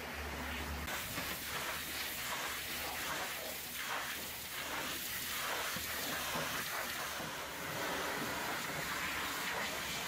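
High-pressure water jet from a pressure-washer wand hitting the metal cab of a concrete mixer truck: a steady spraying hiss that swells and eases as the spray sweeps across the panels.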